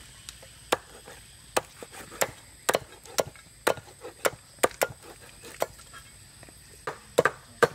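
A large kitchen knife chopping crispy fried pork belly on a thick wooden chopping block: sharp, irregular knocks, about two a second, with a short pause about two-thirds of the way through.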